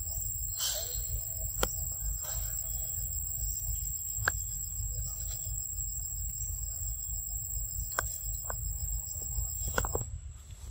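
Forest ambience: a steady, high-pitched insect drone with a pulsing undertone, over a constant low rumble, with a few sharp clicks scattered through. The drone cuts off suddenly near the end.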